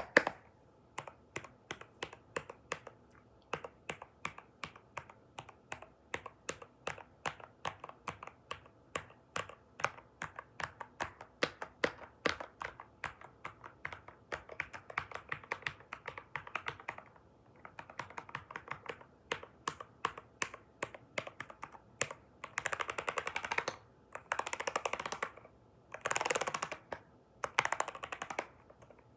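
Computer keyboard being typed on: separate key clicks at a few per second, then, from about 22 seconds in, several short stretches of very fast typing where the keystrokes run together.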